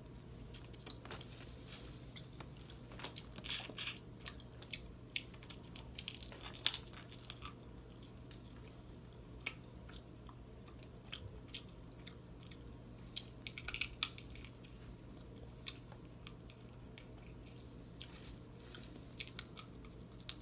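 Close-up eating sounds: snow crab legs being cracked, peeled and bitten, with chewing. Scattered sharp crackles and snaps come in bunches about three, six and fourteen seconds in.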